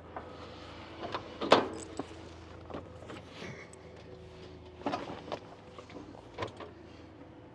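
Scattered metal clunks and rattles of a battery tester and its clamps being handled at a machine's battery, the loudest about one and a half seconds in, over a faint steady hum.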